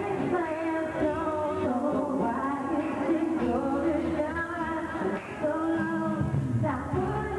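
Live pop song with women singing lead vocals over music played through a club's sound system.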